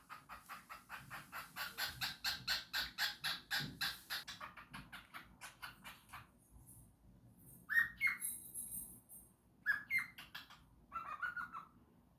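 Cockatiel singing: a fast run of short chattering notes, about four or five a second, for the first half, then three louder whistled calls with rising sweeps near the end.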